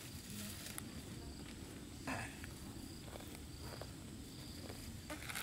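Faint outdoor ambience with insects chirping in short high dashes, a few light clicks, and a brief plastic-bag rustle about two seconds in.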